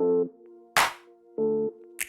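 Electronic background music: short synth chords alternating with a sharp clap-like hit.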